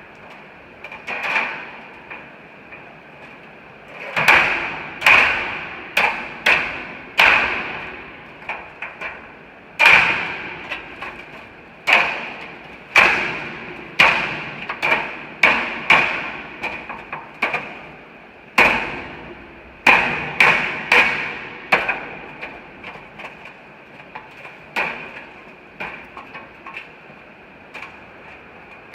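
Hammer blows on the perforated steel floor panels of a grain bin, knocking them down into place on their supports and clips. The strikes are irregular, roughly one a second with quicker runs, and each one rings briefly like sheet metal.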